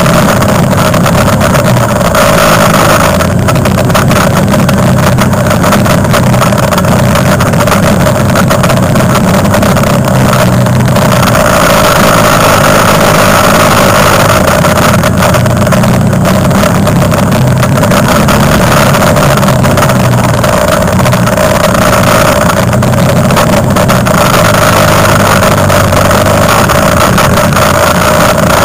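Quad bike (ATV) engine running under way, heard loud and close from a camera mounted on the quad: a continuous drone that swells a few times as the throttle opens and eases.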